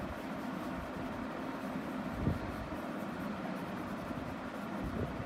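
Yellow colour pencil scratching on paper as a drawing is coloured in, with a short knock about two seconds in.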